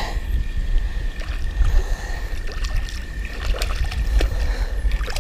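A hooked bass splashing at the surface beside a fishing kayak, with scattered sharp splashes and knocks against the hull over a steady low wind rumble on the microphone.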